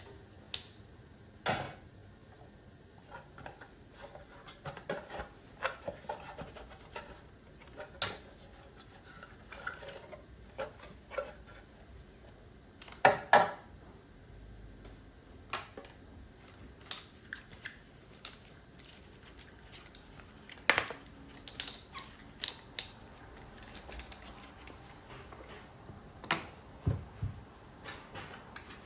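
Dishes and kitchen items being handled and set down: scattered clinks and knocks, with two loud knocks about halfway through and another sharp one a little later.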